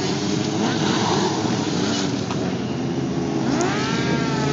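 Several sport-bike engines running at once, with one bike's engine revving up, its pitch rising, about three and a half seconds in.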